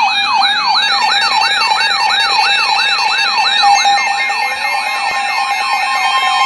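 Midland WR300 weather radio's siren alert, sounding for a severe thunderstorm warning: a loud electronic tone sweeping up in pitch over and over, about three sweeps a second, over a steady tone.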